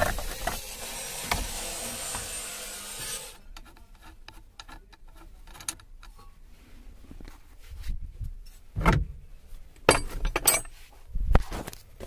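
Hands prying a plastic horn pad off a car steering wheel and working at the wheel's hub. A few seconds of rubbing and scraping of plastic give way to scattered clicks, with a few sharp knocks of metal and plastic parts between about nine and eleven seconds in.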